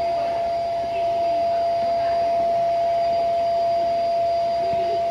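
A steady machine hum: an even rushing noise with one constant mid-pitched whine, unchanging throughout, with faint voices in the background.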